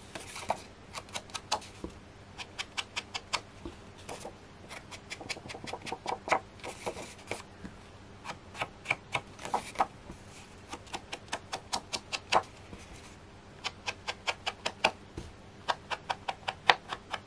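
Runs of quick light taps, several a second, with a few short scuffs between them: a small pad of Chinese red ink being dabbed along the edges of card to colour the white edges.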